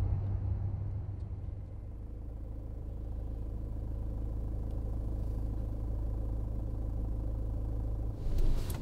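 Low, steady car engine rumble as heard from inside the cabin, at idle or a gentle cruise. A short burst of hissing noise comes in near the end.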